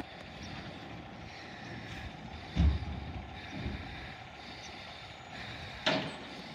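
Peterbilt garbage truck with a Labrie Automizer automated side-loader, engine running as its arm lifts a cart and dumps it into the hopper, with a sharp clank near the end as the cart reaches the top. A gust of wind bumps the microphone about two and a half seconds in.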